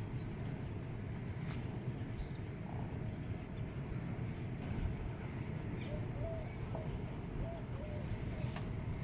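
Steady low rumble of wind on the microphone outdoors, with small birds calling: two descending trills and a few short chirps.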